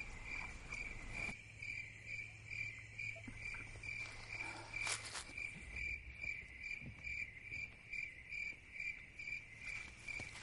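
Crickets chirping in a steady rhythm, about four pulses a second, with one brief click about five seconds in.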